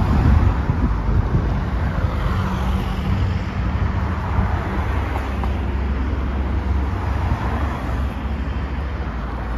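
Road traffic: cars driving past one after another, a steady rumble of engines and tyres on the road.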